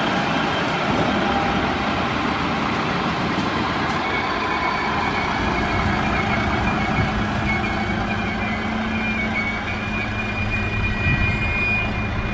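LINT 41 diesel multiple units running through the station: a steady diesel engine and wheel-on-rail rumble, with a low hum and a high whine coming in about four seconds in.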